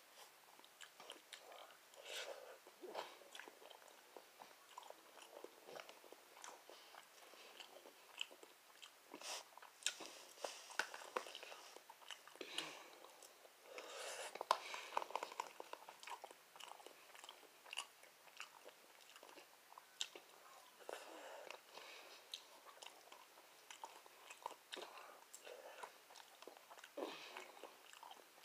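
Faint close-up chewing and mouth sounds of a person eating, with irregular light clicks of a fork against a plastic food container.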